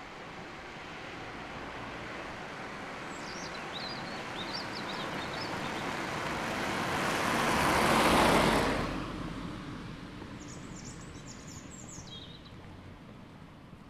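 A car passing by on the road: its tyre and engine noise swells for several seconds, peaks about eight seconds in, then falls away.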